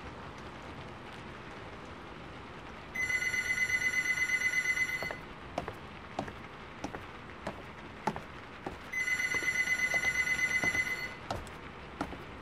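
A telephone ringing twice, each ring a rapid trill about two seconds long with a few seconds' pause between, over a steady rain-like hiss with scattered ticks.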